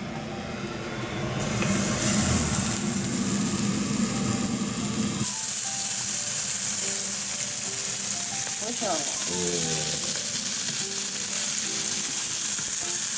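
Hamburger patties sizzling as they fry in a nonstick frying pan, the sizzle growing much louder about five seconds in.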